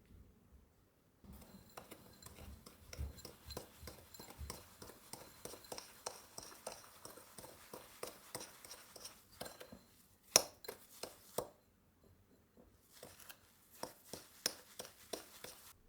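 A run of quick, light clicks and clinks of small hard objects being handled, with two sharper knocks about ten and eleven seconds in and a few more clicks near the end.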